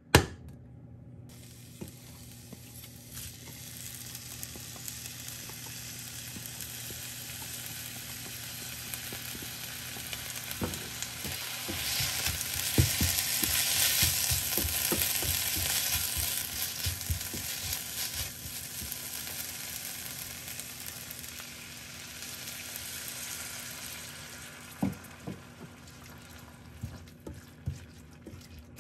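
Food sizzling in a hot pan, with scattered taps and scrapes of a utensil as it is stirred. The sizzle grows louder midway, then eases off. A sharp click comes right at the start.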